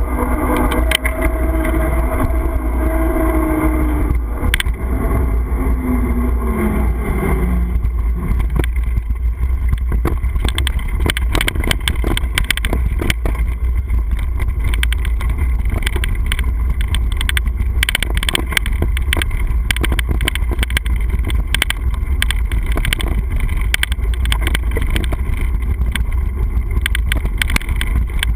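Wind buffeting a mounted action camera's microphone while riding, heard as a constant low rumble. For the first eight seconds, on the pavement, there is a hum that drops in pitch and fades. After that comes a dense, steady rattle of small clicks and knocks as the camera is shaken over a bumpy dirt trail.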